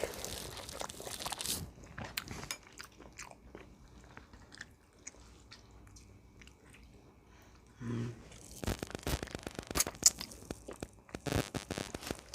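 Close-up eating sounds: crisp crunching, biting and chewing of food, quieter for a few seconds in the middle and heavier over the last few seconds.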